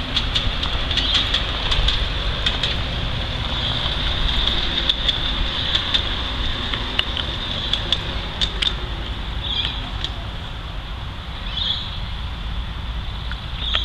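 Maxitrak Planet 5-inch-gauge battery-electric locomotive running on its own around the track, with a steady high whine and scattered clicks of its wheels over the rail joints, under a low rumble.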